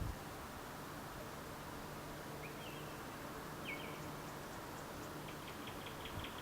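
Small birds calling over a steady rush of wind: two short high chirps about a second apart, then a quick run of rapid notes near the end.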